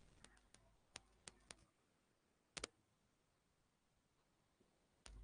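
Near silence with about half a dozen faint, sharp clicks scattered over the first three seconds, two of them close together.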